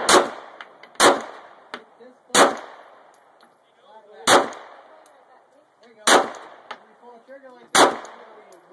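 Glock 17 9 mm pistol fired six times at an uneven pace, about one to two seconds apart. Each sharp crack is followed by a short echo.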